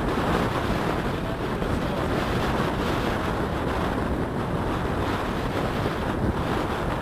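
Strong wind buffeting the microphone in a steady rush, with surf beneath it.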